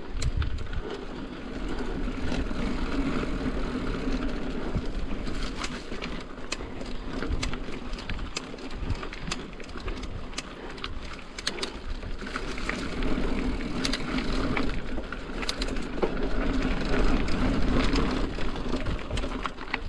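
Cross-country mountain bike riding along a dirt singletrack: steady rolling tyre and trail noise, with frequent small clicks and rattles from the bike over the rough ground.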